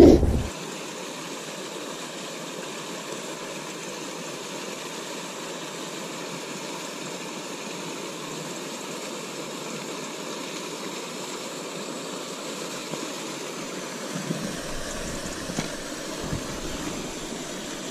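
Steady rush of water pouring from a culvert outflow into a canal, with a few soft knocks near the end.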